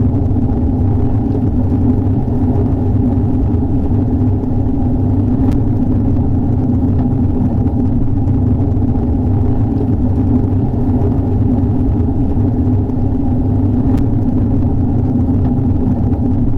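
Steady heavy rain, heard as a dull, even rumble with little hiss, with two faint ticks about five seconds in and again near the end.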